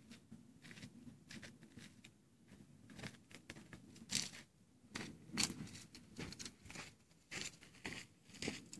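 Faint, irregular rustles and small clicks, the sharpest about five and a half seconds in.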